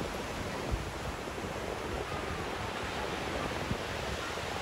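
Ocean surf washing up the beach, a steady rushing noise, with two brief low thumps: one about a second in, one near the end.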